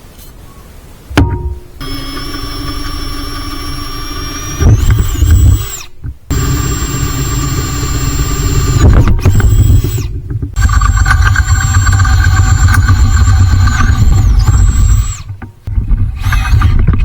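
Electric drill running in several short cut clips, its motor pitch rising and falling as it drills out a snapped exhaust manifold stud.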